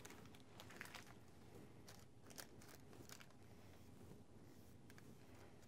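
Near silence, with a few faint ticks and rustles of a paintbrush working paint onto a small picture frame and the wax paper behind it crinkling as the frame is handled.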